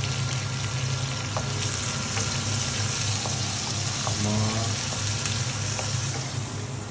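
Sliced onions and vegetable pieces sizzling in hot oil in a wok while a wooden spatula stirs them, with a few light clicks of the spatula against the pan over a steady low hum.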